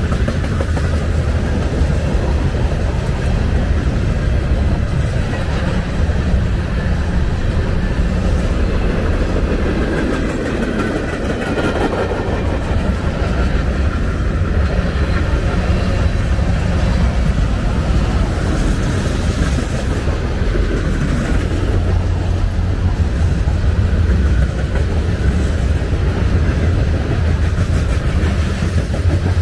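Norfolk Southern freight train's cars (boxcars, covered hoppers and tank cars) rolling past on the near track: a steady, unbroken rumble of steel wheels on the rails.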